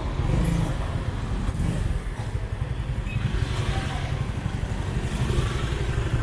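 Motor scooter and car engines running close by in slow, stop-and-go street traffic, with a steady low rumble.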